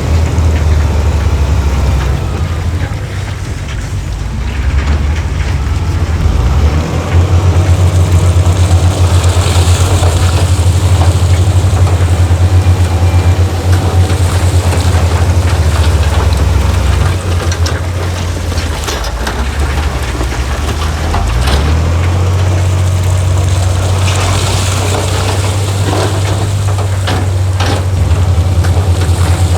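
Heavy diesel earthmoving machinery running with a deep, steady engine drone that grows and eases with the load. Short, sharp clanks and knocks come through in the second half.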